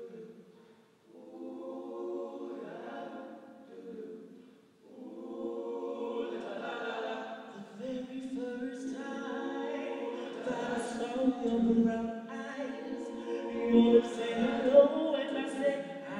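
Men's a cappella ensemble singing in close harmony. Short phrases with brief pauses at first, then fuller and louder from about five seconds in, with a soloist on a handheld microphone over the group.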